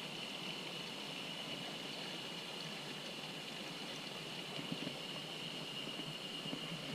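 Mountain stream running steadily, with a thin, steady high-pitched tone over it.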